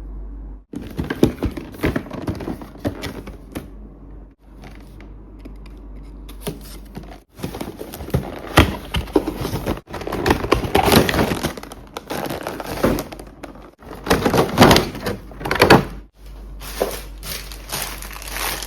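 Handling sounds from unpacking a boxed figure: a dense run of clicks, knocks and rustles, cut into several short sections, over a steady low hum.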